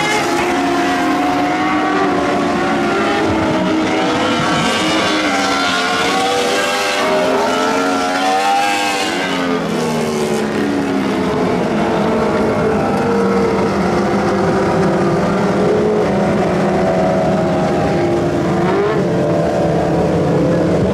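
Several sprint cars running laps on a dirt oval, their engines layered over each other at high revs. The pitches rise and fall as cars pass, most strongly about halfway through.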